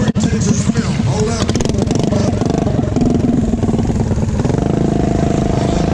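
A mini bike's small engine running up close, its note wavering, then holding steady for the last second and a half.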